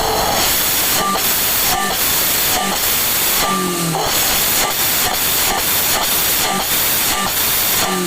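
Daihatsu Luxio 1500 cc engine revved through a newly fitted Suos 'ngorok' aftermarket exhaust, heard as a loud, steady rushing noise with a brief fall in revs about three and a half seconds in.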